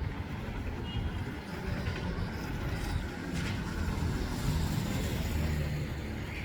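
City street traffic: vehicle engines running past with a steady low rumble, one engine note standing out a little louder about four to five seconds in.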